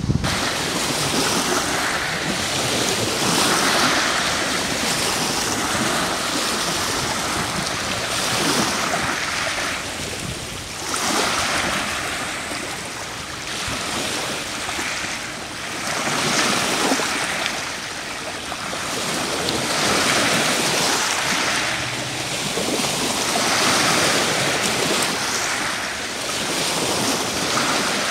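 Small waves washing up and draining back over a pebble beach, the hiss swelling and fading every two to four seconds.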